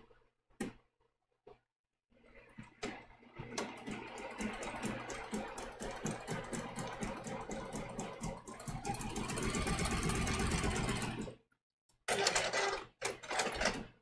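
Electric sewing machine sewing a small zigzag test stitch through a fabric scrap: a few clicks, then the machine starts about two seconds in, runs for about nine seconds, getting louder, and stops. Two more short bursts follow near the end.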